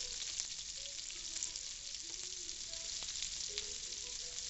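Raw onion rings sizzling in hot bacon grease in a nonstick skillet as more rings are dropped in, a steady hiss with a fine crackle.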